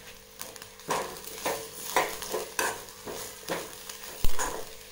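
A metal spoon stirs and scrapes grated coconut roasting with spices in a metal pan, about two strokes a second, over a faint sizzle. One sharp knock comes near the end.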